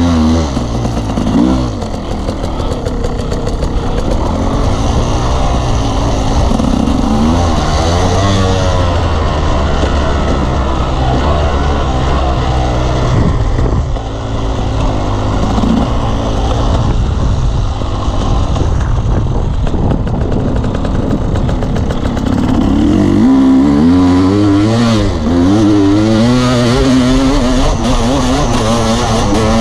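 Off-road motorcycle engine under way, revving up and backing off over and over, its pitch climbing and dropping with throttle and gear changes.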